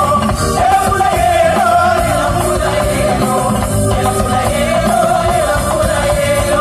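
A live band playing loud amplified music, a wavering melody line over bass and drums.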